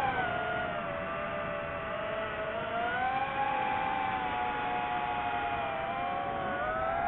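DJI FPV drone's electric motors and propellers whining in flight, several tones gliding up and down together as the throttle changes.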